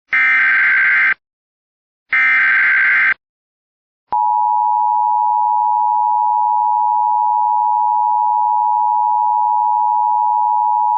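Emergency Alert System SAME header: the last two of its three buzzy data bursts, each about a second long, then about four seconds in the steady EAS attention tone begins and holds, signalling that an alert message follows.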